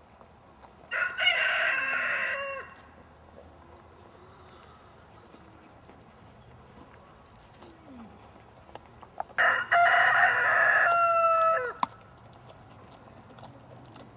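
A rooster crowing twice, about a second in and again about nine seconds in; the second crow ends on a falling note.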